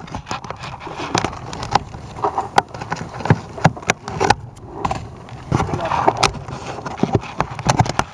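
Close handling noise: an irregular run of sharp clicks, taps and scrapes as hands work on the camera rig right by the microphone, over a low rumble.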